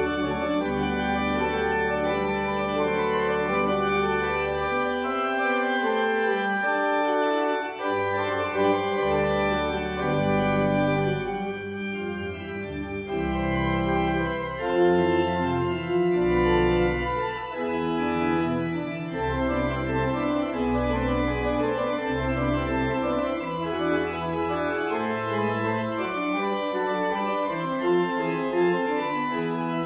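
Church organ playing a piece in sustained chords over a bass line whose low notes change every second or so.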